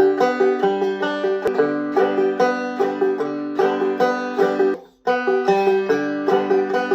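Five-string banjo played clawhammer style, running through a repeating right-hand exercise pattern of evenly plucked, ringing notes. The playing breaks off briefly about five seconds in, then the pattern starts again.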